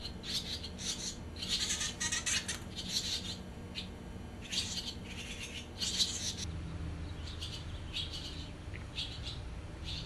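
Swallows chirping: short high-pitched calls in quick clusters that start and stop every second or so.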